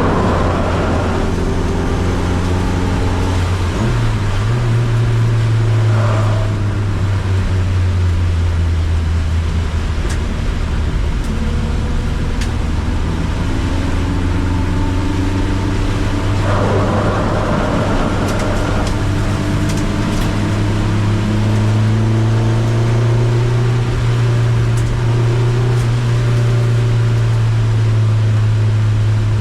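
Car engine driven hard around a circuit, its pitch climbing under acceleration and dropping back again and again as it changes gear and slows for corners, over a steady hiss.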